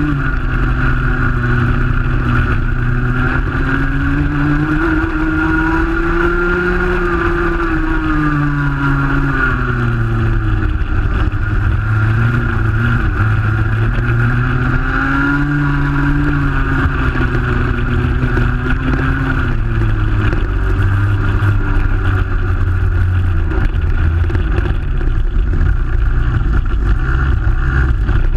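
Rotax Junior Max 125cc two-stroke kart engine running on track, its pitch rising and falling as the kart speeds up down the straights and slows for corners. In the last third it runs lower and steadier as the karts slow and bunch up.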